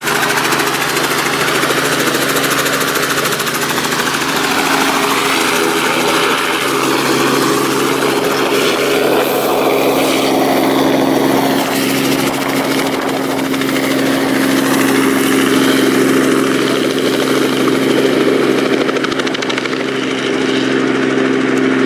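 A small two-bladed piston helicopter running with a steady drone of rotor and engine as it lifts off from the field and flies away low.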